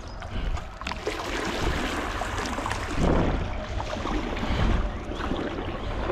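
Shallow river water splashing and sloshing, with scattered small splashes over a steady low rumble.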